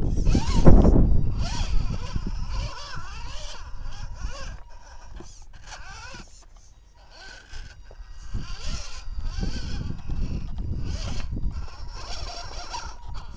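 RC rock crawler's electric motor and gear drive whining in short spurts, the pitch rising and falling with the throttle as it crawls over rough rock, with scraping from the tyres on the stone. A heavy low rumble is loudest about a second in.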